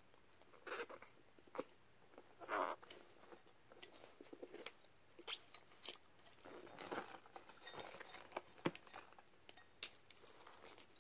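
Two rubber full-face gas masks, one stuffed with tissue paper, being handled and turned over: faint, irregular rustling and crinkling with light knocks and clicks.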